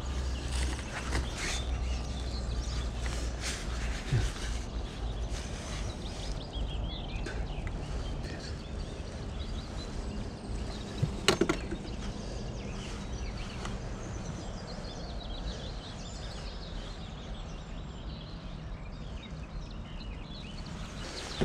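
Scattered knocks and rustling from a landed fish and fishing tackle being handled on a wooden dock, with one sharp knock about halfway through. Faint bird chirps sound in the background.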